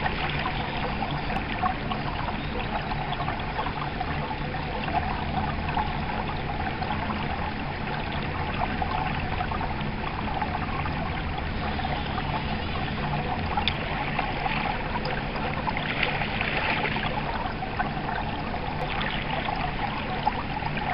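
Shallow stream riffle running steadily over stones and around a wading angler's legs: a constant burbling trickle of water.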